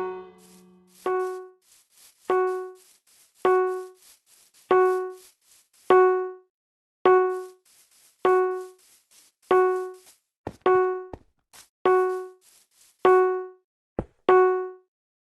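Fire alarm chime sounding one ringing, decaying note, struck about every 1.2 seconds, twelve times, then stopping just before the end. A few sharp clicks come in among the last strikes.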